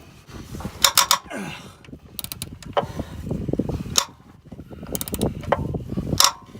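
Hand ratchet working a stuck starter bolt: a series of metallic clicks and short runs of ratcheting ticks, with creaks and clinks of the tool under strain.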